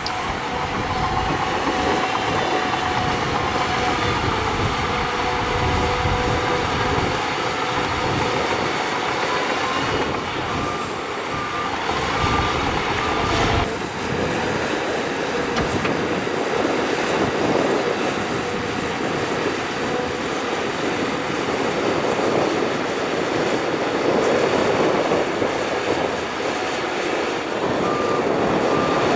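Shantui crawler bulldozer working, its diesel engine running under load while the steel tracks clank and squeal. A reversing alarm beeps in a quick, even series about a third of the way in and again near the end.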